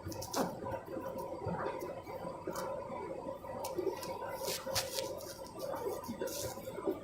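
Candy washing machine drum turning wet laundry, with irregular water sloshing and soft splashes over a steady motor hum.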